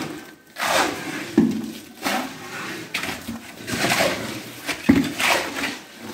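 A shovel scraping and scooping wet concrete topping mix, with pails knocked and set down. It comes as a series of separate scrapes and knocks, about one every second.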